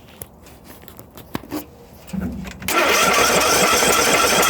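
A few light clicks, then about two and a half seconds in a single-cylinder 500cc Briggs & Stratton engine on a John Deere 102 lawn tractor is started and makes a loud, steady rattling rumble. The noise comes from a failed counterbalancer, which the owner later found had blown a hole in the back of the block.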